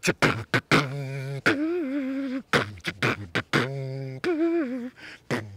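Human beatboxing: sharp mouth-made drum hits, with two hummed bass notes each held for about a second and wavering slightly in pitch between the hits.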